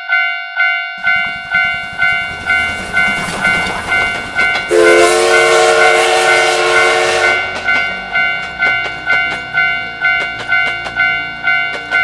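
Japanese railroad-crossing warning bell ringing steadily, about two strikes a second. About a second in, a passing steam train's running noise joins. Near the middle its multi-note steam whistle blows for about two and a half seconds, followed by regular wheel clicks over the rail joints.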